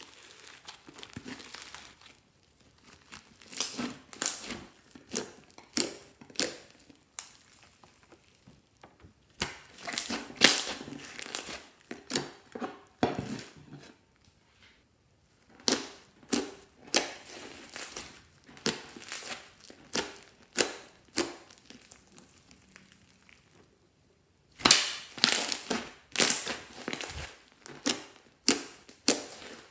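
Crinkling, crackling handling noises from slime making with balloons: clusters of sharp crackles and squishes, separated by short pauses, and loudest near the end.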